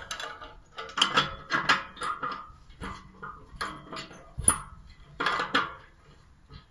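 Metal clinks and short scraping rattles as the air-supply fittings on a homemade rocket wood stove are opened by hand, with a sharp click about four and a half seconds in.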